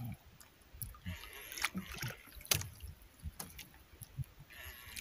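Water sloshing against the hull of a small outrigger boat, with a few sharp clicks scattered through it while a fish is reeled in on a jigging rod.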